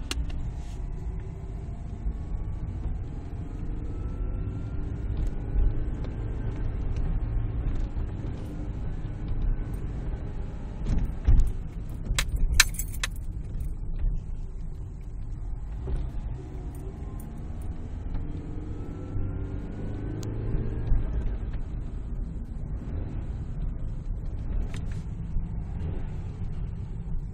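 Car cabin while driving: a steady low road and engine rumble with a faint whistle that rises in pitch as the car picks up speed, heard twice. About halfway through there is a short jangle of metallic clicks.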